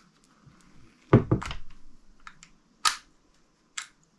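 Handling a .22 semi-automatic pistol: a clattering knock about a second in, then several sharp separate clicks as its parts are worked and inspected.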